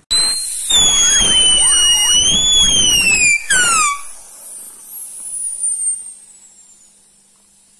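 A loud whistle over a rush of air, starting suddenly and sinking slowly in pitch for about three seconds. It breaks off, a lower whistle drops quickly, and a faint high whistle slides down and fades out.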